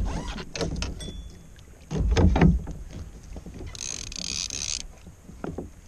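Wind and water noise on a fishing kayak at sea, with irregular low thumps at the start and about two seconds in, and a brief high hiss about four seconds in.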